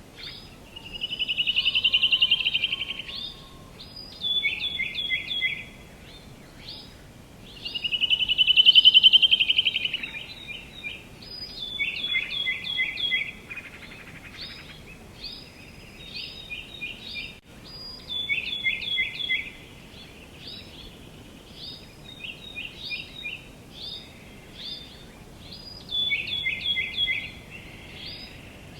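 Songbirds calling: quick series of short, high chirps repeated throughout, and twice a louder rapid trill lasting about two seconds, the first a second or so in and the second near the middle, over a faint outdoor background hiss.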